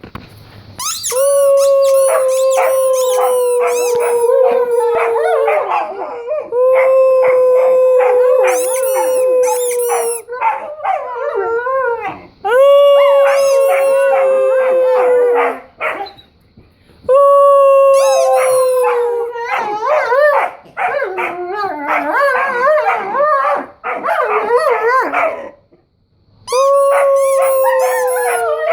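A Weimaraner and an Old English sheepdog howling and whining in excitement. There are about five long, steady howls of several seconds each, each sagging in pitch at the end, with quicker wavering whines and yips in between.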